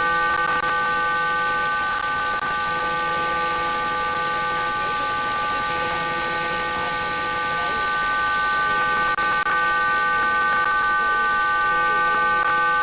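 Cuban numbers station on 11530 kHz shortwave sending a data burst: several steady tones held together over static hiss.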